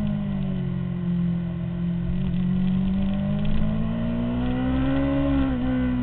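2003 Honda CBR600RR's inline-four engine, heard onboard, running at low revs through a corner and then rising steadily in pitch as the bike accelerates out. There is a brief dip in pitch about five and a half seconds in.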